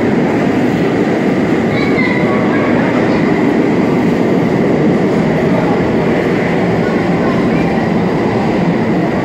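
New York City subway express train running along the platform: a steady, loud rumble and clatter of steel wheels on the rails, with a brief high wheel squeal about two seconds in.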